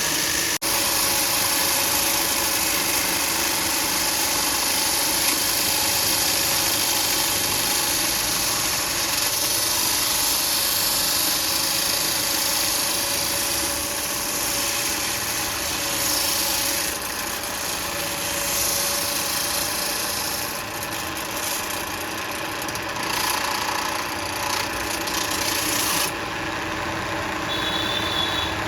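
Steady rasping cutting noise as the copper tubing of an air-conditioner cooling coil is cut through at the header side, to take out a leaking section before U bends are fitted.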